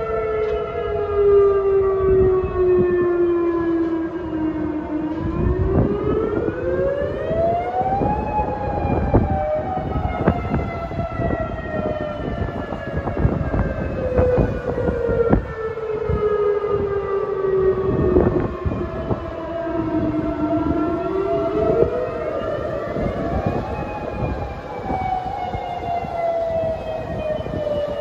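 Outdoor tornado warning sirens wailing, several at once and out of step: each tone rises over a few seconds, then falls slowly, repeating about every 15 seconds. Low rumbling noise runs underneath.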